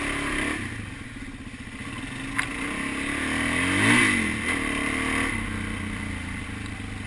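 Single-cylinder dual-sport motorcycle engine running on the move, its pitch climbing to a loud peak about four seconds in and then easing off. A brief click sounds a little before the peak.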